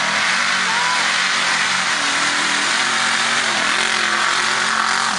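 Lifted Ford pickup's engine held at high revs, its pitch nearly steady, as the truck ploughs through deep mud, with a loud, even hiss of spinning mud tires throwing mud.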